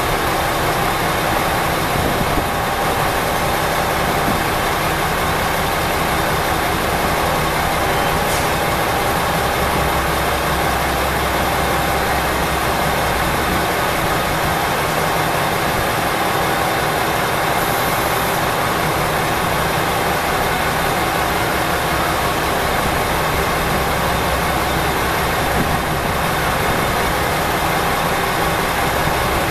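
Diesel engines idling: a steady low rumble with a constant hum.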